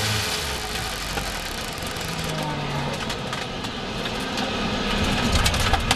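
Onboard sound of a historic sports racing car limping along slowly after a failure: wind and road noise over a low, uneven engine note at low revs, with a run of sharp rattling clicks near the end.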